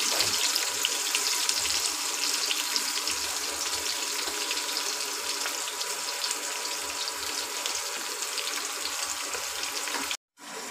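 Sliced onions frying in melted butter in a pressure cooker pot: a steady sizzling hiss with small crackles, dropping out for a moment near the end.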